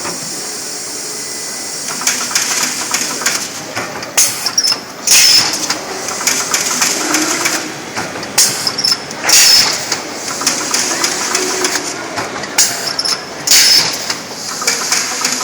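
CNC amorphous core cutting machine running: sharp clacks of the shear cutting amorphous strip, the loudest about every four seconds, over a steady hiss of air.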